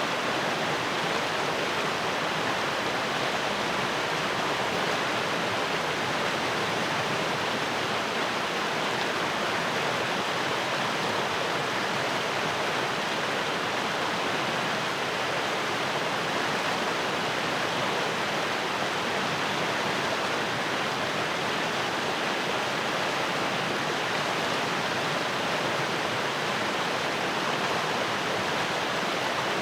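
Fast-flowing stream rushing over rocks, a steady full rush of water.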